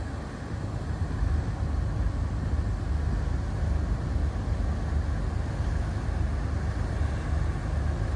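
Passenger motor ship underway on a reservoir: a steady low rumble with an even hiss over it.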